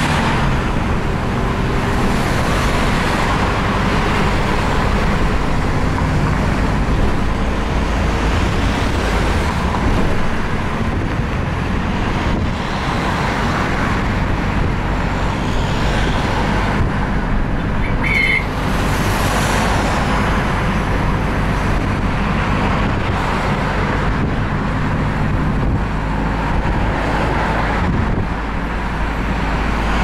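Bus engine running and tyre and road noise, heard from inside the moving bus: a steady low hum under a constant rush. A brief high chirp about 18 seconds in.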